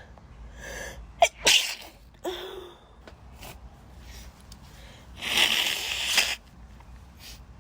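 A woman sneezing rapidly: two sharp sneezes in quick succession about a second in, with breaths around them. A longer, loud breathy sound follows about five seconds in.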